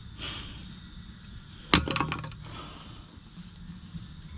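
A single sharp metallic clank about two seconds in, ringing briefly, as metal parts or tools knock together during axle removal.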